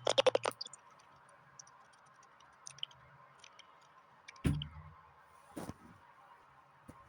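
A quick run of sharp clicks at the start, then a heavier knock with a short low tone about four and a half seconds in and a single sharp click a second later, with faint scattered ticks between.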